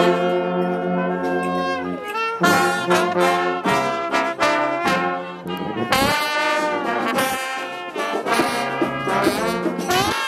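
Brass-led music with trombones and trumpets: held notes at first, then a quicker run of short notes from about two seconds in.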